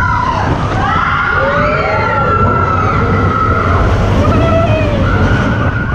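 Roller coaster riders screaming on Expedition Everest, several long held screams rising and falling and overlapping, over a steady low rumble of the moving train.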